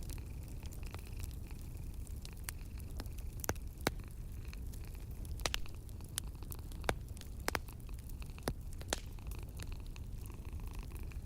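Wood fire crackling, with irregular sharp pops over a steady low rumble, and a cat purring softly underneath.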